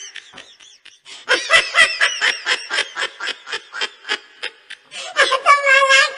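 Someone laughing in a fast run of short bursts, about six a second, ending near the end in a longer, high drawn-out note.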